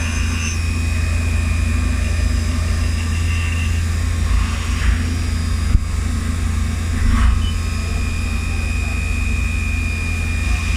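Milling machine running steadily while thread milling: a constant low hum with high-pitched spindle whine tones that fade and return partway through.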